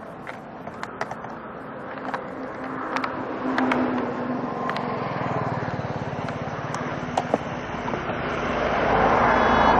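Road traffic noise from a highway, with a vehicle engine growing steadily louder through the second half as it comes closer. Scattered small clicks and knocks sound close by.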